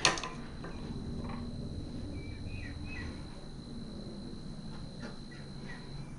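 Faint bird chirps, a few short calls scattered over a low background hum, with a thin steady high whine that stops near the end.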